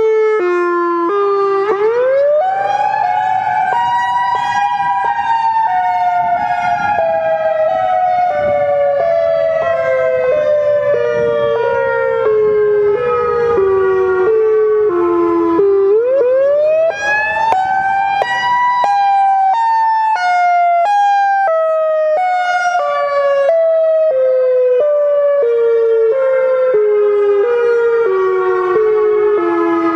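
A siren wailing: its pitch rises quickly, then sinks slowly in small steps for about thirteen seconds. The cycle starts again about two seconds in and about sixteen seconds in.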